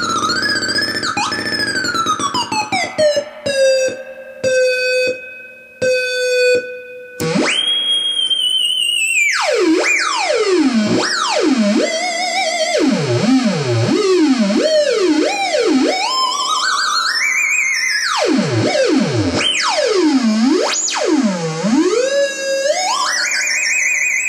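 RTX Robo Theremin, a box-style electronic theremin synth, played by hands moving over it: one buzzy electronic tone gliding in pitch. In the first few seconds it slides down and stutters into short choppy notes. After that it swoops up and down in wide, fast glides.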